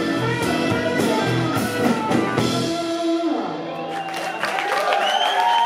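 Live rock band with electric guitar and drum kit playing the final bars of a song, stopping about three seconds in. The crowd then starts cheering and clapping.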